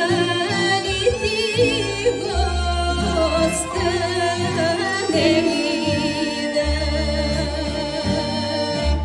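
Female folk singer singing a Bulgarian folk song in an ornamented, wavering voice, accompanied by a folk-instrument orchestra with a low bass line.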